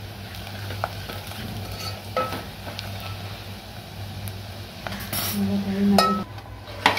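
Spices being stirred into sizzling oil and fried onion in an aluminium pot, the stirring spoon scraping and clinking against the pot's sides. There are a few sharp clinks, the loudest near the end.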